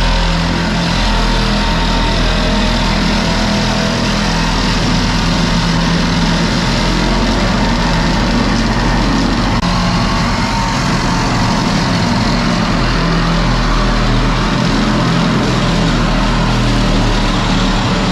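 An engine running steadily at a constant speed, with a continuous low hum.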